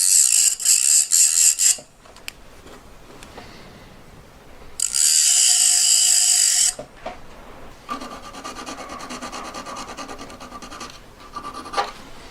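Hand tool rasping back and forth on a metal ring shank in quick strokes, in three bouts: a loud one at the start, another loud one about five seconds in, and a quieter, longer one near the end.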